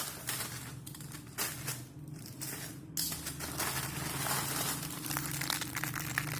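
Plastic packaging crinkling and rustling as an air conditioner's parts are unwrapped and handled, with a steady low hum underneath.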